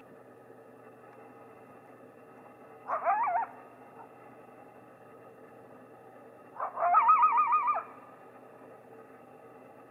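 Coyote calling twice: a short wavering howl about three seconds in, then a longer howl with a quavering, up-and-down pitch about seven seconds in.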